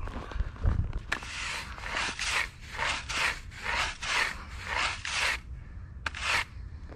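Footsteps crunching and scuffing across a thin dusting of snow on ice, a steady run of about two to three steps a second. The steps stop about five seconds in, with one more step near the end.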